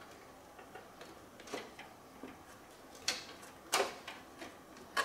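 Scattered light clicks and knocks of plastic and a circuit board being handled and worked loose inside a robot vacuum's clean base housing, the two loudest about three seconds in, half a second apart.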